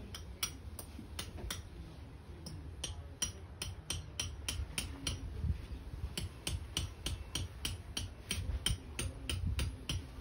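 Hammer tapping a metal tent peg into the ground: a string of sharp, irregular taps, about three a second, over wind rumbling on the microphone.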